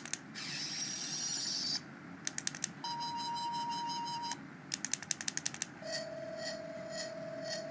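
Toy sonic screwdriver playing its electronic sound effects: a high warbling whine, then a steady tone, then a pulsing tone near the end, with sharp clicks of its button between them.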